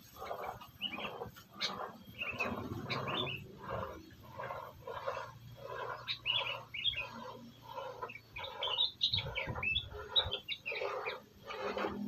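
Sooty-headed bulbuls calling, a busy run of short notes at about two a second with higher chirps mixed in.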